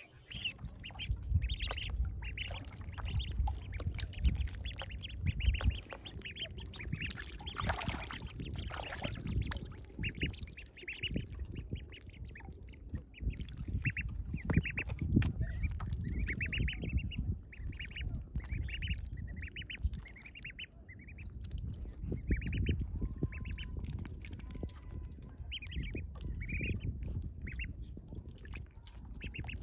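A group of domestic ducklings peeping over and over in short, high calls, several a second, while they paddle about in a basin of water, with small splashes and sloshing beneath the calls.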